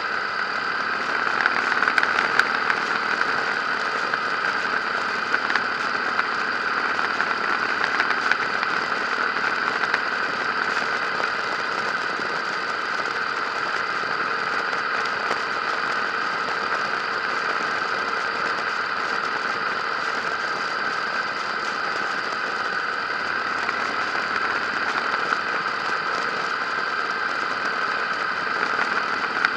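Harley-Davidson V-twin motorcycle engine running steadily at cruising speed, with wind rushing past, heard from a camera mounted on the moving bike.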